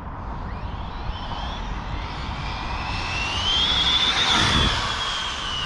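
Arrma Felony 6S RC car's brushless motor and drivetrain whining on a full-throttle speed run. The high whine rises in pitch and loudness to a peak about four seconds in, then drops a little as the car goes past.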